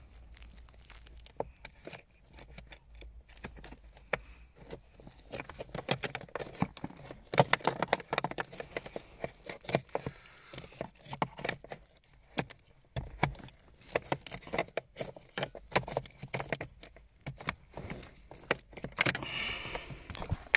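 Hands working among the plastic parts under a car's dashboard: irregular clicks, taps and knocks with rustling in between, louder bunches of clicks about a third of the way in and again near the end.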